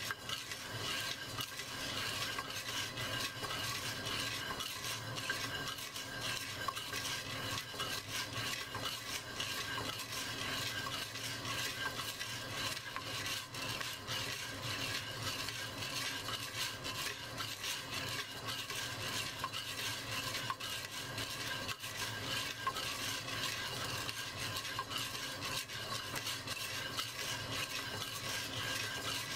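Coffee beans being stirred in a clay pot as they roast: a steady, dense rattle and scrape of dry beans against the pot.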